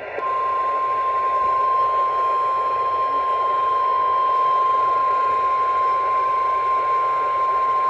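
Emergency Alert System attention tone over AM radio: one steady, single-pitched tone held for the whole alert lead-in, with radio hiss underneath.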